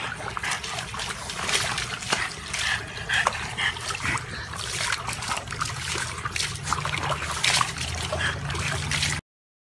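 Water splashing and trickling in a plastic tub as a French bulldog sits and shifts about in it. The sound cuts off suddenly near the end.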